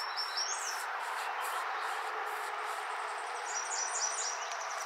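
Outdoor ambience of insects and birds chirping: a few high rising chirps about half a second in, and a rapid, evenly pulsed high trill starting about three and a half seconds in, over a steady hiss.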